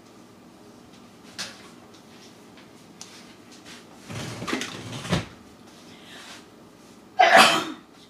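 Kitchen handling sounds from someone working at the counter: a light click, a clatter about four seconds in, and a louder short bang near the end.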